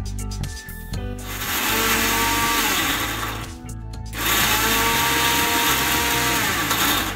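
Electric mixer grinder running in two bursts of about three seconds each, its steel jar grinding biscuits to powder; the motor's whine drops away as it is switched off at the end of each burst.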